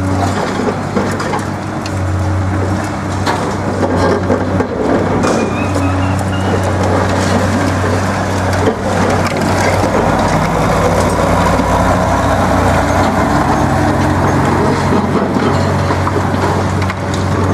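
Heavy diesel engine of a CAT 385C high-reach excavator running steadily under load, with scattered cracks and crunches of concrete as its demolition shears bite into the building.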